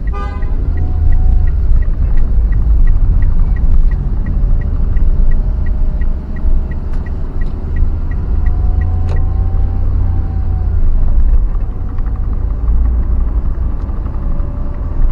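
A vehicle travelling on the road, with a heavy, steady low rumble. A light, even ticking about three times a second runs through it and stops about nine seconds in.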